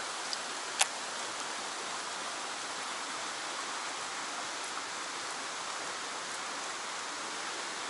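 Fast current rushing steadily through a narrow concrete-walled channel, with one sharp click a little under a second in.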